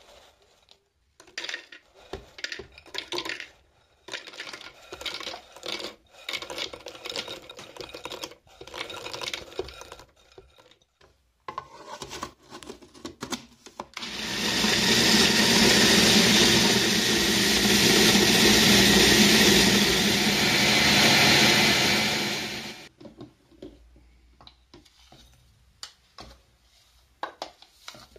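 Hard chocolate cookies clattering by the handful into a plastic food processor bowl. Then the electric food processor runs steadily for about nine seconds, grinding the cookies to crumbs, and stops abruptly. Near the end a metal spoon scrapes and clinks the crumbs out of the plastic bowl.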